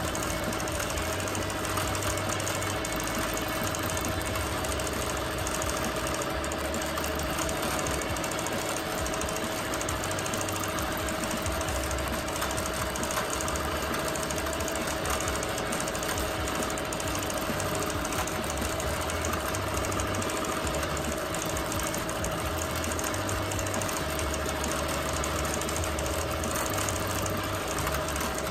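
Bernina Q24 longarm quilting machine stitching continuously, the needle running fast over a steady hum.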